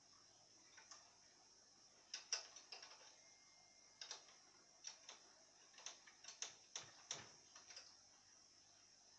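About a dozen irregular light clicks and taps, from hands working on a scooter's frame and parts, bunched between about two and eight seconds in over faint hiss.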